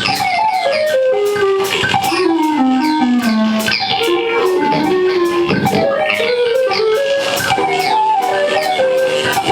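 Live garage rock band playing loudly: an electric guitar plays fast stepping runs, mostly descending, over drums with steady cymbal hits.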